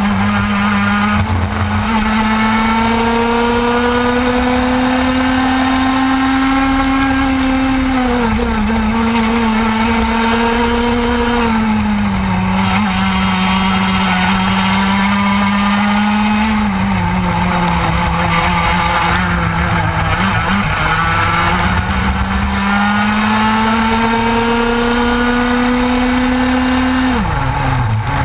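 Onboard sound of a TKM two-stroke kart engine under race load. The engine note climbs slowly as the kart accelerates down the straights and drops each time it slows for a corner, with a sharp fall in revs near the end under braking.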